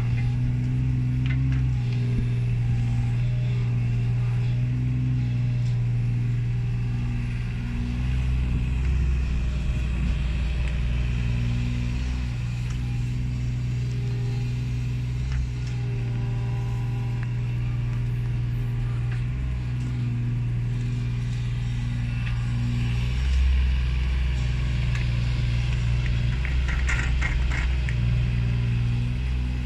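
A Kubota KX016-4 mini excavator's diesel engine runs steadily while its hydraulics work the arm and bucket. The engine note gets heavier for a few seconds at a time under digging load. Near the end there is a quick rattle of clanks as the loaded bucket swings over to the truck.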